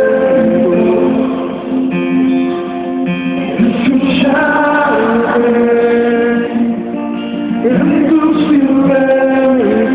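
Live music: an acoustic guitar strumming under a male voice singing sustained notes.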